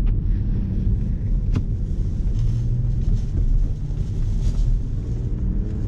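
Audi car's engine running and road rumble heard from inside the cabin as the car rolls slowly, a steady low drone, with two short clicks about a second and a half apart.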